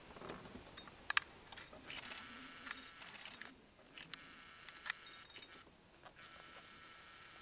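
Faint whine of a camcorder's zoom motor, stopping and starting a few times, with a few sharp clicks from handling the camera.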